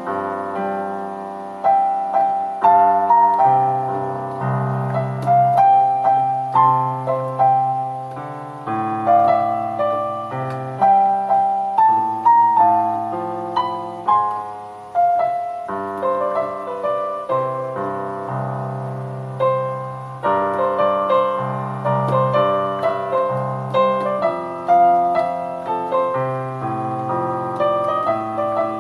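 Solo piano playing a lively melody over sustained bass notes.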